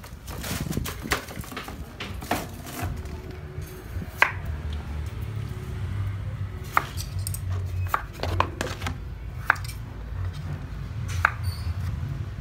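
Knife chopping raw potatoes into fry sticks on a wooden cutting board: irregular sharp knocks of the blade striking through onto the board, a few loud chops among lighter cuts.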